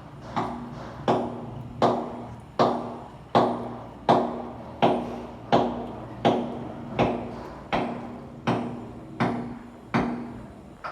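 Steady, evenly paced hammer blows, about fourteen strikes at a little over one a second, each with a short metallic ring after it.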